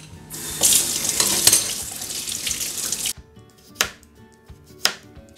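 Kitchen tap running as a peeled potato is rinsed under it, cutting off suddenly about three seconds in. Then a knife slices through a raw potato onto a plastic cutting board, with sharp strokes about a second apart.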